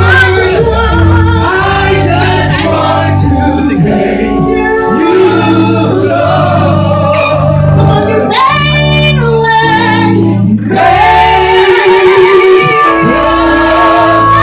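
Gospel worship music with singing over a steady bass line.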